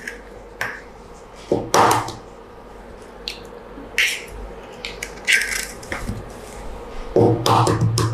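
Hen's eggs being cracked into a small ceramic bowl: a series of short, sharp taps and cracks of shell against the bowl rim and shell being broken open, loudest about two seconds in and again near the end.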